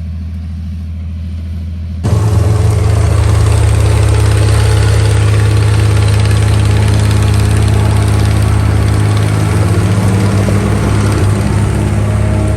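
John Deere 95 combine running with a steady low engine hum; about two seconds in the sound jumps suddenly much louder and stays loud.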